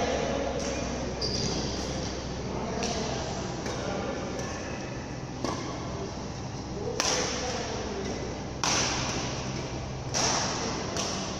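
Badminton rackets striking a shuttlecock in a rally: about ten sharp hits, a second or so apart, that echo around a large hall, over a steady low hum.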